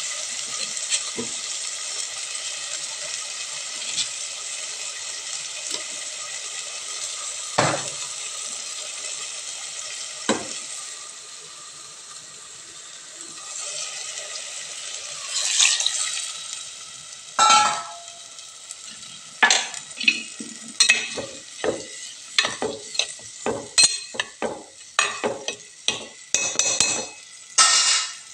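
Food in a clay pot on a gas stove sizzling with a steady hiss that fades after about ten seconds. It is followed by a run of sharp knocks and clinks of utensils against the pot, coming more often toward the end.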